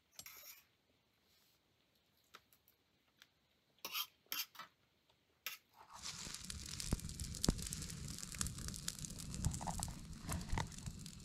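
A few faint, scattered clicks of forks on plates. About six seconds in, a steady rustling hiss with scattered crackles takes over.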